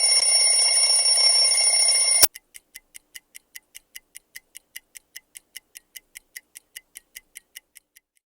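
Alarm clock ringing shrill and steady, cutting off suddenly about two seconds in, then a clock ticking evenly at about five ticks a second until shortly before the end.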